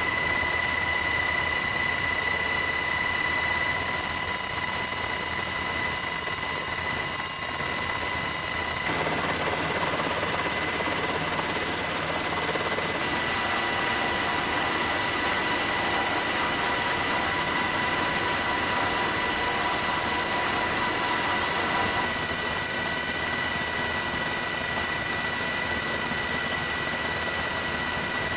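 Cabin noise of a helicopter in flight: a steady rushing noise with a high, multi-tone turbine whine on top. The tone changes abruptly about 9, 13 and 22 seconds in.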